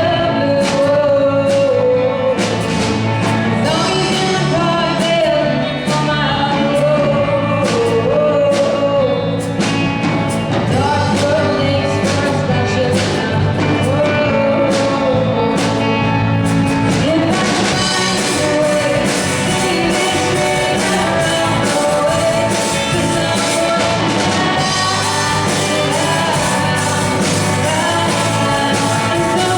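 Live rock band playing a song with a lead singer, drums keeping a steady beat. About seventeen seconds in, the cymbals come up and the band plays fuller.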